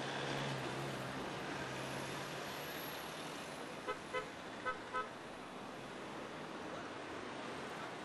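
A vehicle horn tooting four short times in two quick pairs over steady street traffic noise.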